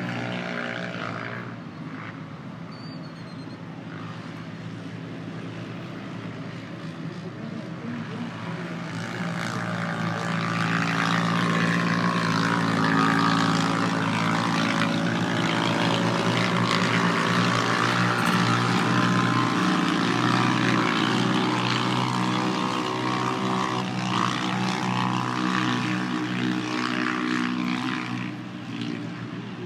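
Engines of 570-class UTVs running in an off-road race, over a steady droning hum. The engine noise grows louder from about ten seconds in and eases off near the end.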